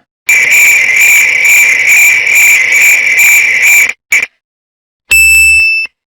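Sound-effect clip of a frog calling, a steady trill lasting about three and a half seconds. After a short pause comes a brief, clear electronic tone.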